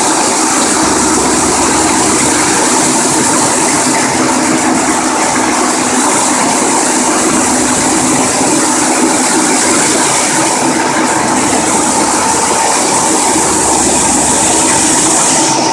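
75 hp 84-inch Blanchard rotary surface grinder running, its abrasive wheel grinding metal on the turning chuck under a spray of coolant: a loud, steady hiss of grinding and splashing coolant over a steady machine hum.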